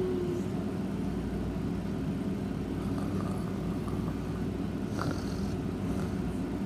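A sleeping cat snoring, a steady low rumble. In the first moment the end of a thin falling whistle fades out.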